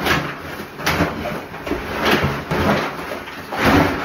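Plastic garbage bags rustling and scraping as they are forced through a trash chute's hopper door, with knocks from the hopper, in about five shoves, the loudest near the end. The bags are a tight fit, a struggle to get down the chute.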